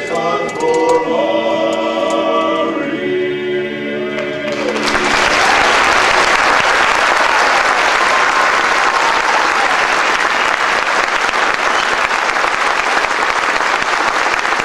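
An unaccompanied vocal group sings the last bars of a song in harmony, ending about four and a half seconds in; then an audience applauds steadily.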